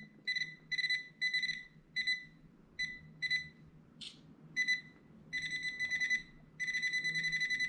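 Nokta Makro Pulsedive underwater metal detector with its larger coil beeping as it picks up a brooch at the edge of the coil. It gives a string of short, high-pitched beeps at uneven intervals, turning into rapid, nearly continuous beeping in the last few seconds.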